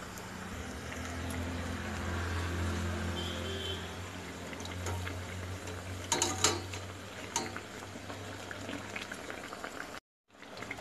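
Battered eggplant slices deep-frying in hot oil in a wok: a steady bubbling sizzle over a low hum. A few sharp metal clicks come about six seconds in and again a second later, as a wire skimmer knocks against the wok, and the sound cuts out briefly near the end.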